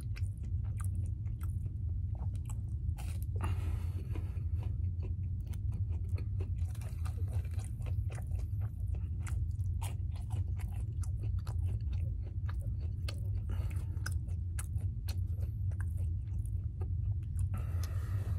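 A person chewing French toast sticks close to the microphone, with many quick wet mouth clicks, over a steady low hum. Two brief hissy stretches come about three seconds in and near the end.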